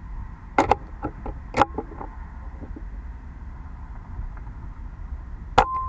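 Pellet air rifle being fired: a pair of sharp cracks about half a second in, a few lighter clicks, another crack, and a louder single sharp crack near the end with a brief ringing tone after it. These are the safety shots meant to put a shot iguana down for good.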